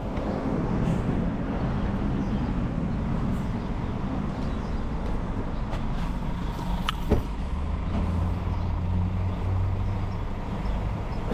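BMW R nineT's air/oil-cooled boxer twin running under way, with a broad rush of wind noise over it. A single sharp click comes about seven seconds in, after which the engine holds a steadier low note.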